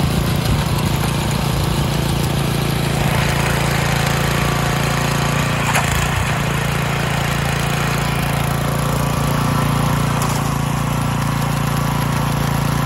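Trench digger's engine running steadily: an even mechanical hum with a rough, rasping noise over it and a couple of faint sharp clicks.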